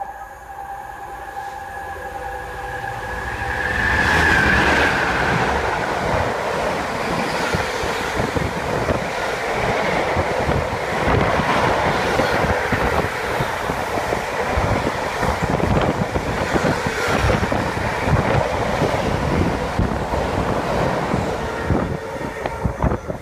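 Container freight train running through a station. A steady whine grows as the locomotive approaches and peaks as it passes about four seconds in. After that the container wagons rumble and clatter past on the rails without a break.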